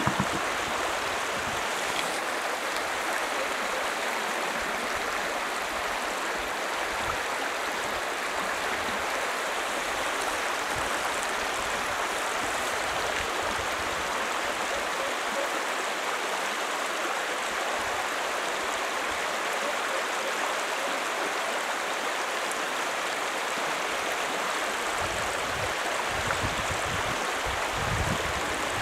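Steady rushing of river rapids, water flowing fast over stones. A low rumble comes in near the end.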